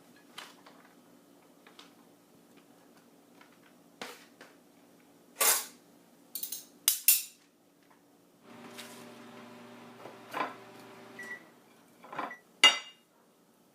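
Kitchen clatter of a dish and a microwave oven being handled, with several sharp clicks and knocks. Then a microwave oven hums steadily for about three seconds, stops with a short beep, and gives more clicks, the last one loud.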